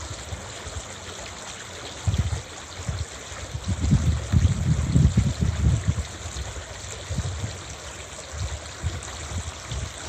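A shallow stream running over rocks, a steady rush of water. Wind buffets the microphone in low gusts from about two seconds in, heaviest around four to six seconds.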